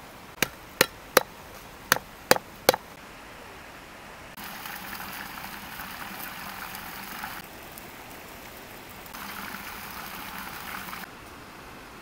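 Six sharp knocks in two quick sets of three, then two stretches of rustling and crackling as lemongrass stalks are pushed into a steaming clay pot around an eel.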